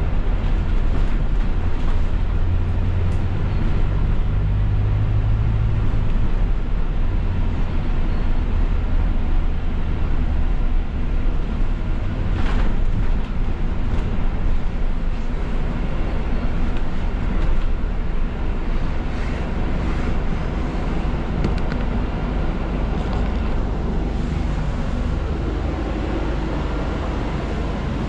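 Engine and road noise of a London double-decker bus heard from its upper deck while it drives: a steady low hum under a wash of road noise, strongest in the first few seconds.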